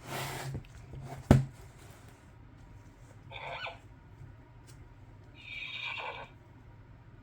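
A brief rustle at the start and a sharp click about a second in, then two short bursts of a recorded pony whinny played through a children's sound book's small speaker.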